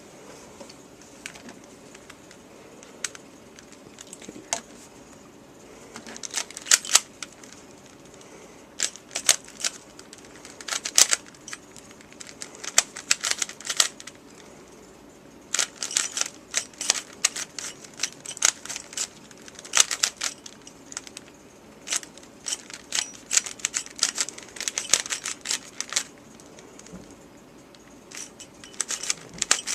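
A 3x3 puzzle cube being turned fast by hand: the plastic layers click and clack. The turns come sparsely at first, then in quick flurries of several turns with short pauses between.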